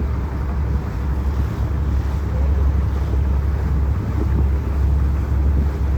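Wind buffeting the microphone aboard a moving boat: a steady low rumble over a rush of water noise.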